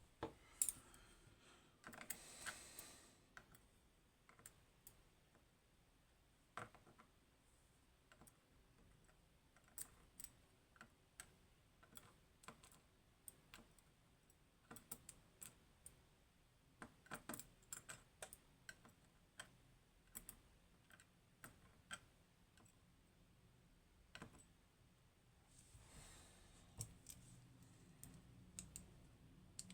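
Faint, scattered small clicks and taps of the tiny pins, springs and parts of a disassembled Goal Grand V high pin count lock being handled and sorted, with a brief rustle about two seconds in and again near the end.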